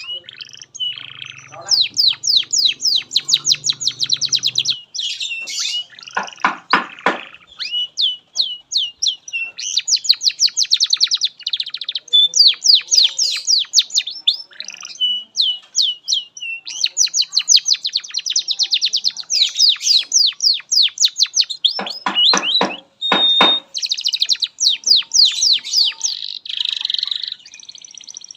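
Domestic canary singing a long, unbroken song of fast trills and chirps. It includes two spells of rapid rattling rolls and a short held whistle.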